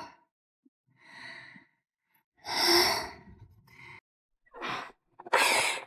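A person sighing and breathing heavily: five breathy exhalations, roughly a second apart. The loudest come about halfway through and at the end.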